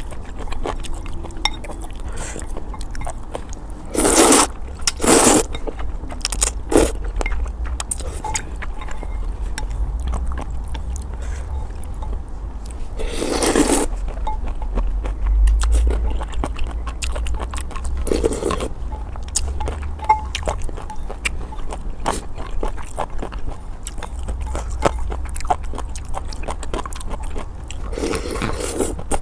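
Close-miked eating of rice noodles: several loud slurps (two about four and five seconds in, a longer one in the middle, more later), with wet chewing and small mouth clicks between them.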